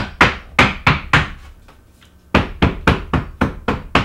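Hammer knocking rapidly on the wooden form of a freshly poured concrete countertop, about three knocks a second, with a pause of about a second midway. The knocking vibrates the wet concrete to drive air bubbles out.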